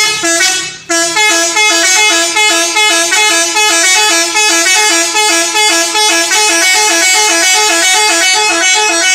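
Rosalia Indah bus's telolet horn playing a long tune: quick, short notes alternating between a few pitches. There is a brief break about a second in, then the horn plays on without stopping.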